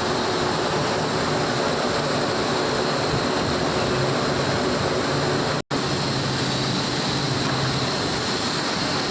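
Steady industrial roar of a blast furnace at casting, with a low hum and a faint high whine; it drops out for an instant a little past halfway.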